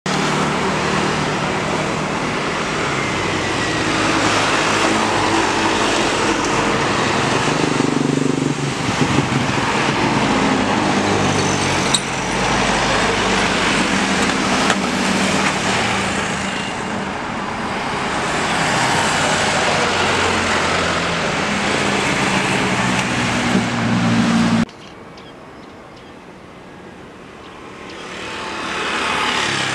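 Jet airliner engines running loudly, a steady rush with a low hum. About 25 seconds in the sound cuts off sharply to a quieter background. Near the end the engines of an approaching Boeing 737 swell louder.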